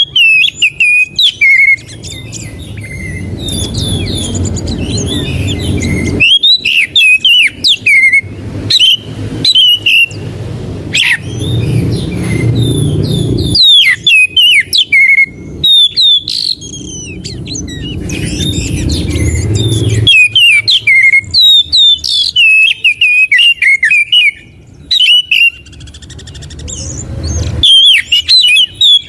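Oriental magpie-robin (kacer) song: rapid bursts of varied sharp whistles and chirps, each run lasting a few seconds with short breaks between. A low rumble underneath swells slowly and cuts off abruptly several times.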